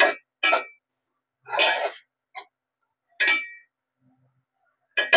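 Steel spoon stirring chopped tomatoes and onions in an aluminium pot: a series of separate scrapes and clinks of metal on metal, several with a short ring, with a longer scrape about one and a half seconds in.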